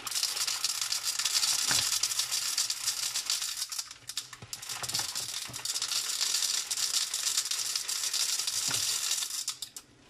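Coarse dishwasher salt poured from a cardboard box into a plastic funnel over a dishwasher's salt reservoir, the crystals running down in a steady rattle. There is a short lull about four seconds in, and the pouring stops just before the end.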